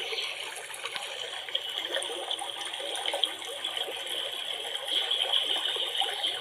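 Running river water: a steady rushing hiss with a few small scattered clicks.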